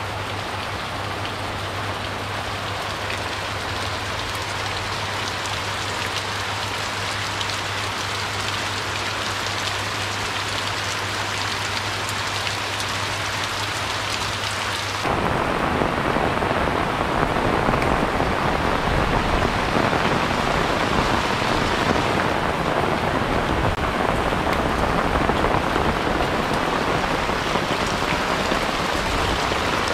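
Steady rain falling on leaves, roofs and the ground, with a low steady hum underneath. About halfway through, the hum stops and the rain noise turns suddenly louder and fuller.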